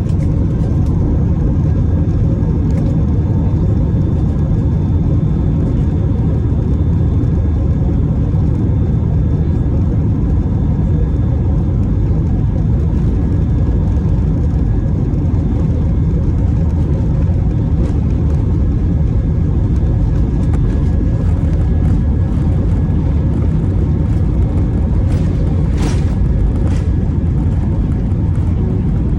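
Steady rumble of jet engines and rushing air heard inside an Airbus A319's passenger cabin, with faint steady whines above it and a brief faint rattle near the end.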